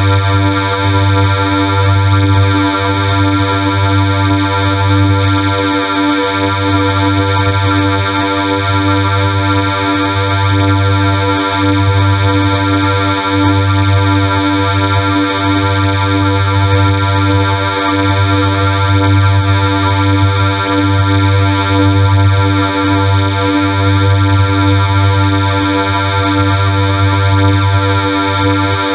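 Loud, harsh synthesized drone: many steady tones stacked together over a deep low hum that pulses unevenly, holding the same pitch throughout.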